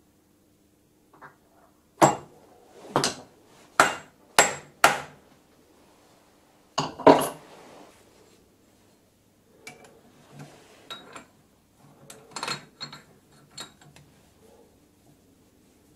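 Metal-on-metal knocks and clanks of lathe work-holding being handled, about six sharp loud strikes in the first half. Lighter clicks and scrapes follow as a drill is clamped in a small two-jaw lathe chuck with a T-handle key.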